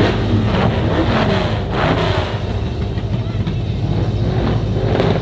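Muscle car engine running with a steady low rumble.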